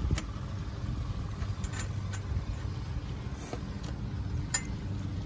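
Light clicks and taps of small metal bolts being threaded in by hand to hold the fuel rails on a plastic LS intake manifold, with a sharper click about four and a half seconds in, over a steady low rumble.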